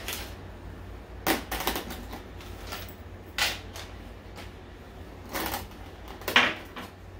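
Clear plastic bag crinkling while two cable hangers for a grow light are pulled out of it, with clicks and clinks of their fittings against the tabletop. The sound comes as a few short, sharp handling noises about a second and a half, three and a half, five and a half and six and a half seconds in.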